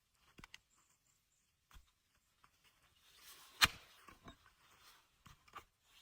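Sparse, quiet clicks and knocks, with one sharp knock a little past halfway.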